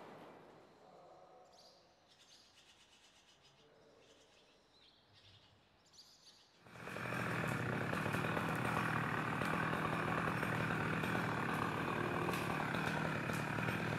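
Faint bird chirps. About halfway through, a chainsaw cuts in and keeps running steadily.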